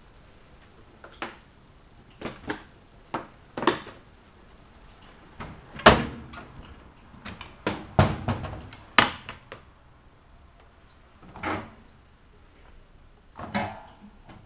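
A series of irregular knocks and clacks, about a dozen, spaced unevenly, with the loudest about six and nine seconds in.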